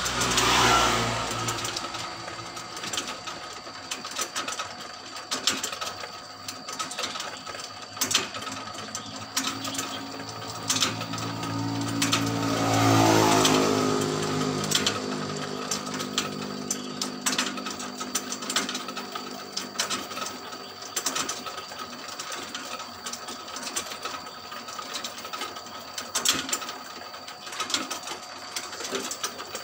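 Chain-driven motorized rotisserie turning its spits, the roller chain and sprockets clicking and rattling steadily over a constant mechanical hum. Twice, at the start and about 13 seconds in, a passing vehicle swells and fades, its pitch falling.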